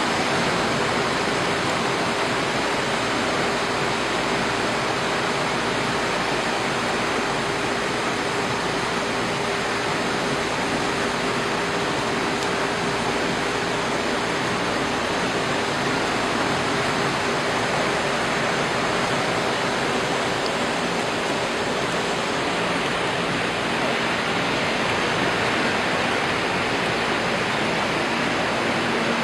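A steady, unbroken rush of water noise, even in level throughout, with a faint low hum running under it.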